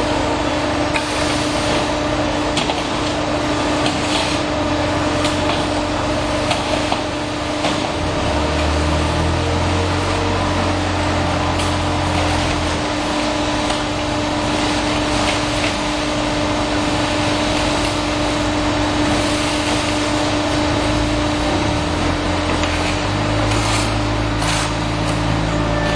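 Concrete pipe making machine running: a constant hum over dense mechanical noise, with a few sharp knocks. A deeper rumble comes in for a few seconds about eight seconds in and again near the end.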